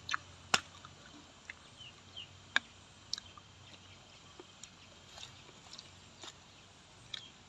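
Eating sounds: a scattering of short, sharp clicks of metal spoons against clay plates, with a couple of louder clinks about half a second and two and a half seconds in, over faint chewing.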